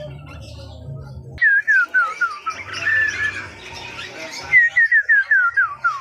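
A caged songbird singing two runs of short, clear whistled notes, each note falling in pitch, about six a second. The first run begins a little over a second in and the second about four and a half seconds in.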